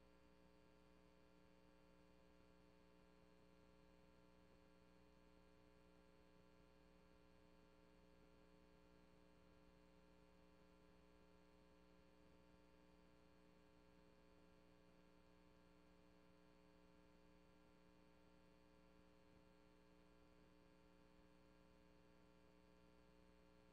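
Near silence: only a faint, steady hum, because the recording's audio was lost and no sound from the room was captured.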